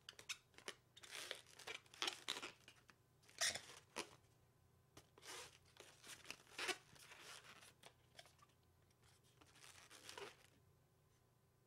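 A latex 260 modelling balloon rubbing and crinkling under the fingers as it is twisted and folded into shape, in short irregular bursts that stop about ten and a half seconds in.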